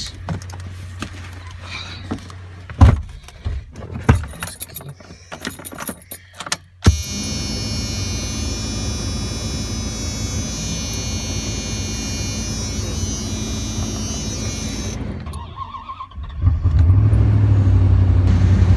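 Clicks and knocks of someone climbing into an old Dodge pickup and handling the keys. Then a steady mechanical whir for about eight seconds, a short lull, and the truck's gasoline engine catching and running loudly near the end: a cold start.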